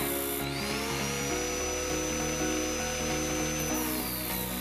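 Background music over the whine of an RS-775 DC motor spinning a sanding disc while a small piece of wood is held against it. The whine rises in pitch about half a second in, holds steady, and drops near the end.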